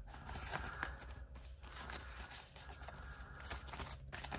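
Soft rustling of paper banknotes and a clear plastic binder pouch as a stack of bills is pulled out and handled, with a few small crinkles and ticks.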